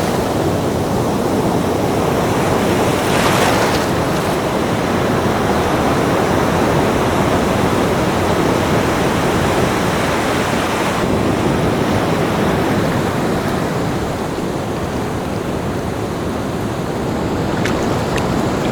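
Ocean surf washing onto a beach, a continuous rush of breaking waves with a brighter hiss of a wave breaking about three seconds in.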